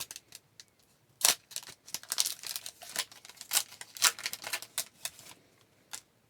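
Hockey trading cards and their pack wrapper being handled: an irregular run of crisp clicks, snaps and rustles from about one second in, with a last click near the end.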